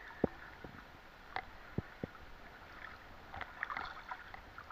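Shallow seawater lapping and sloshing around people wading waist-deep, with a few light, sharp clicks and knocks scattered through it.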